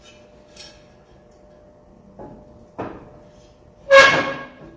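Aluminium bumper pieces knocking together as they are fitted up: a couple of light knocks, then a loud metallic clang near the end that rings briefly.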